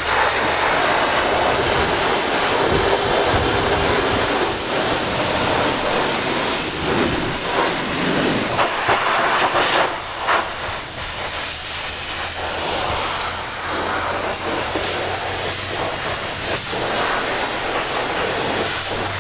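Self-serve car wash pressure wand spraying high-pressure water onto a car's engine bay, a steady loud hiss of spray that dips briefly about ten seconds in.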